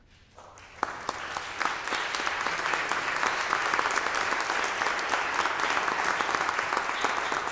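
Audience applauding: clapping starts about half a second in and builds within a second into steady, dense applause.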